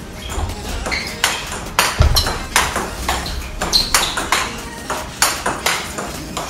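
Large-ball (44 mm) table tennis rally: the ball clicks sharply off the rubber paddles and the table in quick alternation, about two to three clicks a second, with a low thump about two seconds in.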